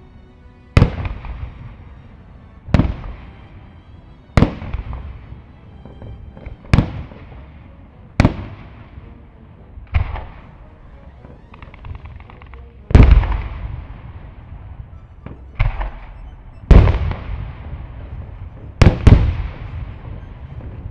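Fireworks display: aerial shells bursting in sharp bangs every one to three seconds, about a dozen in all, each trailing off as it echoes away, with a stretch of crackling about halfway through.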